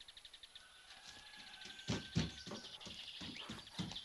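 A bird trills briefly in quick high ticks, with faint bird calls behind. From about two seconds in come regular approaching footsteps, about three a second, which are the loudest sound.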